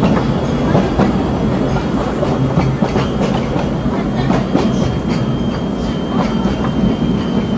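Disneyland Railroad steam train rolling along the track, heard from aboard: a steady rumble with wheels clicking over the rail joints, and a thin steady high whine over it.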